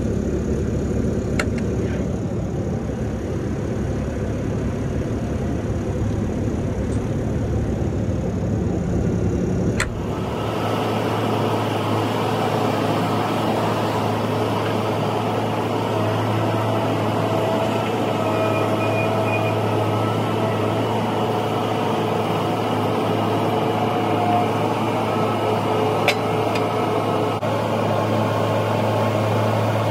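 A vehicle engine running steadily, a low drone. The sound changes abruptly about ten seconds in, then carries on as a steady engine drone.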